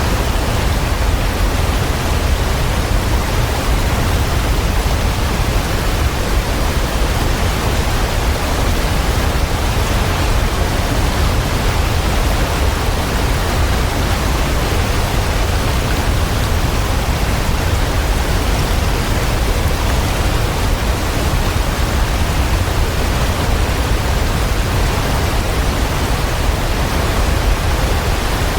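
Waterfall: a continuous, even rush of falling water, heaviest in the deep low end, with no change over time.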